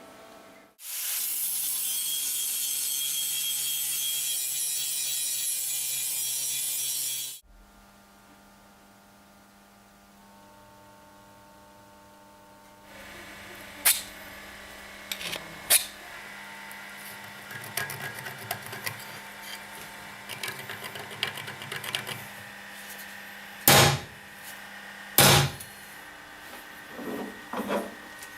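Power tool running at full speed for about six seconds with a loud, steady, hissy sound, then stopping abruptly. Later there are metal parts being handled, with scattered clicks and two sharp knocks near the end.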